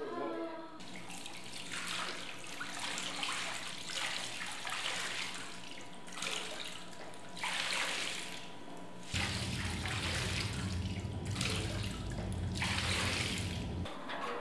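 Hanks of yarn being squeezed and worked by hand in a basin of water, splashing in repeated bursts every second or two as the yarn is wetted before indigo dyeing. About nine seconds in, a low machine hum joins and cuts off suddenly about five seconds later.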